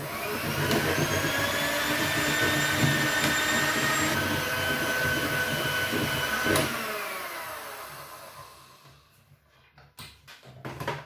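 Philips electric hand mixer running steadily, its beaters whipping a chocolate and mascarpone cream in a plastic bowl. It is switched off with a click about six and a half seconds in and winds down over a couple of seconds. A few knocks follow near the end.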